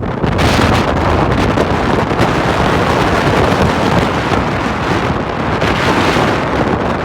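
Strong typhoon wind gusting on an exposed mountain summit, buffeting the microphone with a loud, continuous rumbling roar that swells and eases with the gusts.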